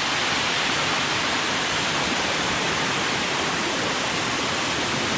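Waterfall: a steady, even rush of falling water, close by.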